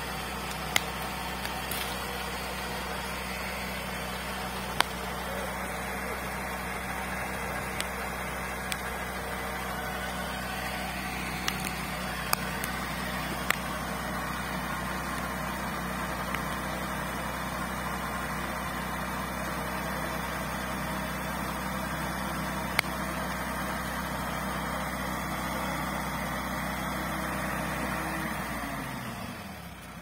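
An off-road vehicle's engine runs steadily while it pulls a buried crawler-tractor track out of the forest floor on a line, with a few sharp clicks along the way. Near the end the drone slides down in pitch and drops away.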